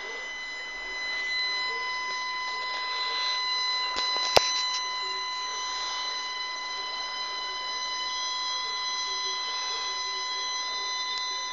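A steady high-pitched electronic whine made of several pure tones held at once, with a higher tone joined by a lower one about a second in, and a single sharp click about four seconds in.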